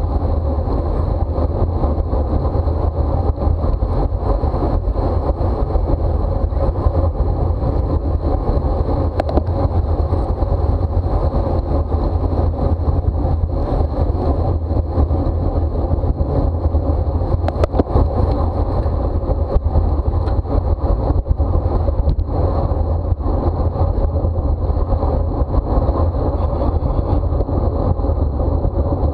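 Steady, loud wind rushing over the microphone of a camera on a bicycle racing at speed, with the tyres running underneath. A few brief clicks come a little past halfway.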